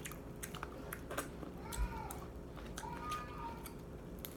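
Crab-leg shell crackling and clicking as it is picked apart by hand, with a soft thump about two seconds in. Behind it come two faint, drawn-out wailing calls that rise and fall in pitch.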